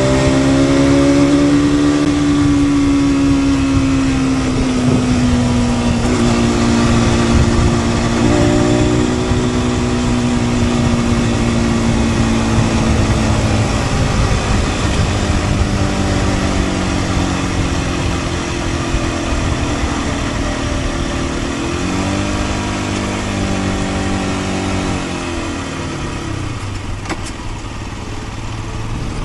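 The single-cylinder 125 cc four-stroke engine of a stock 2023 Aprilia RS 125, heard from the rider's seat, running in gear under way. Its pitch climbs briefly at the start, then slowly sinks, shifts once about three quarters of the way through, and sinks again, over a steady rush of wind and road noise.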